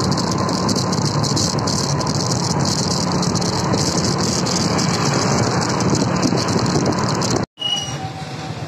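Steady vehicle engine and road noise with rattling and wind crackle on the microphone, recorded from a moving vehicle just ahead of a truck. It cuts out abruptly near the end and comes back quieter, as slower traffic engine noise.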